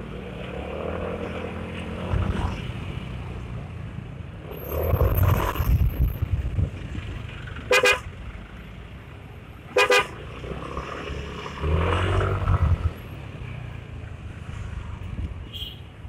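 Motor scooter horn honking twice in short blasts, about two seconds apart, as the scooter filters through heavy traffic. Around the honks there is steady engine and traffic noise, and it swells twice as the engine pulls away.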